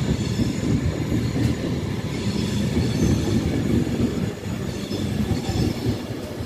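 ETR 460 Pendolino electric train pulling out of the station, its wheels rolling steadily over the rails. Faint wheel squeal comes and goes.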